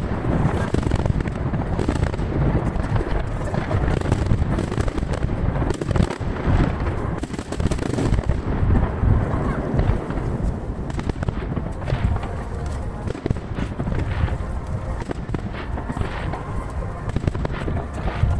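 A dense barrage of fireworks shells bursting about 800 m away, with booms and crackles overlapping in a near-continuous rumble.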